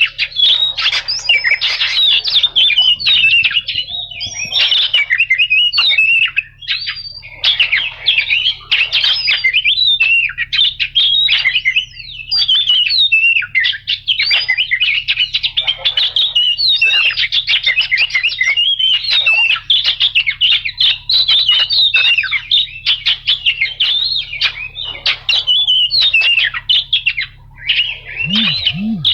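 Oriental magpie-robin (kacer) singing without pause: a fast, varied stream of whistled notes and chattering runs.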